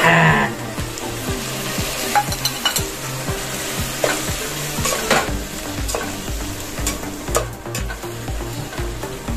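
Chopped tomatoes dropped into hot oil in an aluminium pot, with a loud burst of sizzling at the start. Frying then goes on with a steady sizzle while a spoon stirs and scrapes the pot, with scattered clinks of the spoon against the pot.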